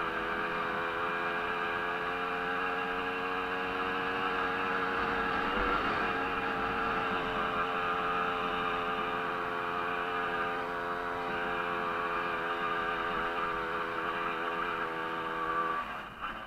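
Small 50 cc two-stroke moped engine of a Jawa 50-based racer held at high revs under hard throttle, a steady buzzing note. Briefly dips and picks up again about six seconds in; near the end the throttle is shut and the revs fall away.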